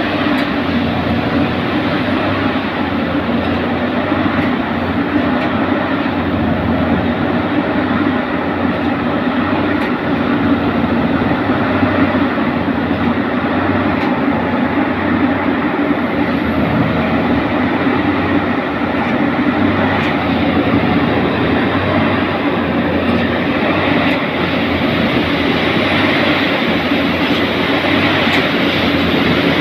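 Diesel engine of a Plasser India track maintenance machine running steadily at close range, a continuous loud mechanical drone.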